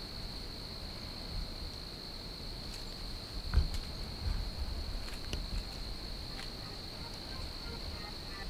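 Crickets calling in a steady, high-pitched chorus, with a single thump about three and a half seconds in and a few faint clicks.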